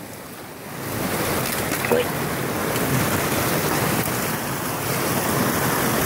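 River water rushing over a small dam's spillway, a steady rush that is softer for the first second and then holds level.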